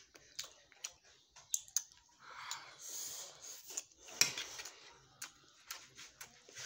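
Child eating from a plate: a spoon and fingers clink and scrape against the dish in a scatter of small clicks, with one louder clink about four seconds in. A short hiss of noise sounds between about two and three seconds.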